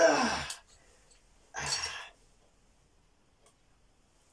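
A man's straining groan, falling in pitch, at the start, then a short breathy sigh about a second and a half in.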